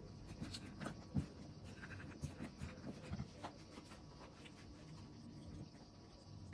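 Jaggery-coated roasted chickpeas clicking and rattling faintly as fingers break set clumps apart on a plate, with one sharper click just over a second in.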